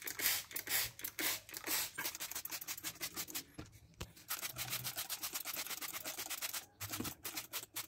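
Hand trigger spray bottle squirting cleaner onto a dirty engine bay, in rapid repeated spritzes, each a short hiss, with a couple of brief pauses. The cleaner is being sprayed on to soften the mold and grime before brushing.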